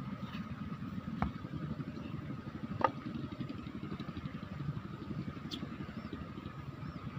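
Steady low rumble of a fast-flowing river and wind on the microphone, with two sharp clicks about one and three seconds in, the second the loudest, and a few faint high chirps later on.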